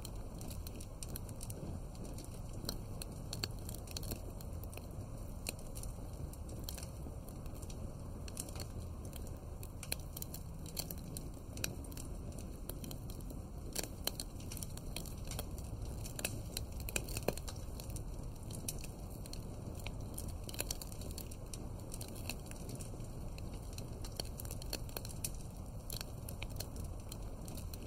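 Wood fire crackling: frequent irregular snaps and pops over a steady low hiss and rumble of the flames.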